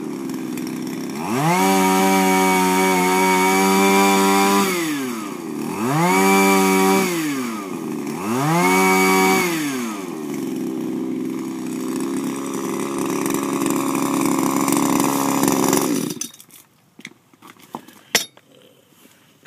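Shindaiwa power broom's small two-stroke engine revving up and dropping back three times, then running at a steady lower speed for several seconds before it cuts off. A single sharp click follows a couple of seconds later.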